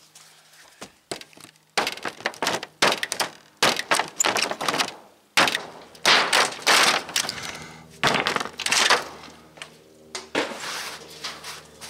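A hammer striking and breaking out rotted, rusted sheet-metal roofing. Irregular sharp knocks in quick runs, with cracking and crumbling as pieces come away.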